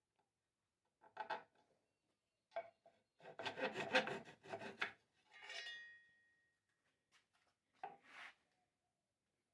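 Sandpaper rubbing on a wooden saw handle in short bouts of strokes, the longest about three seconds in, followed by a short ringing tone that fades out.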